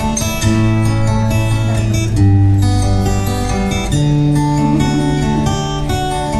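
Solo acoustic guitar playing a song's instrumental intro, chords ringing over a steady low bass line, with no singing yet.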